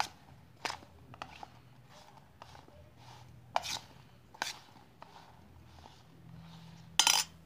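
Metal slotted spoon scraping and clinking against a steel plate while tossing amla pieces with spice powders: scattered sharp scrapes and taps, the loudest a longer scrape near the end.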